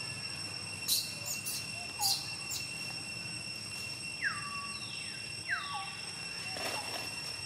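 Insects droning steadily on a few high, unchanging pitches. Several sharp clicks come in the first couple of seconds, and two short whistle-like calls, each sliding down in pitch and then holding briefly, follow a little past the middle.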